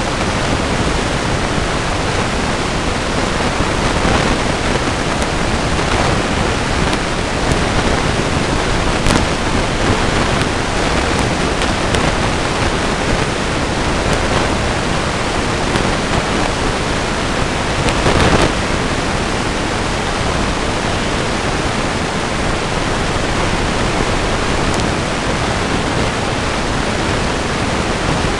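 Steady loud hiss, even from low to high pitches, typical of the self-noise of a trail camera's microphone, with a few faint clicks scattered through it.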